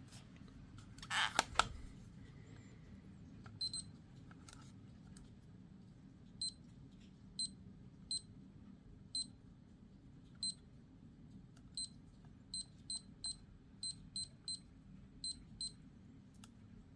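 Canon CC-10 alarm clock calculator beeping: about fifteen short high key beeps at irregular intervals, some in quick runs, as its buttons are pressed. A short loud rattle comes about a second in.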